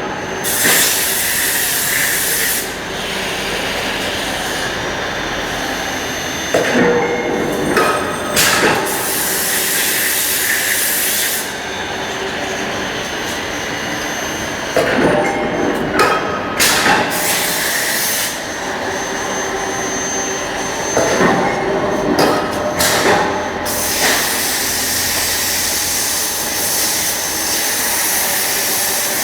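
Medium-frequency induction heating equipment for copper bars running with a steady hiss and hum, with clusters of short knocks at irregular intervals, several seconds apart.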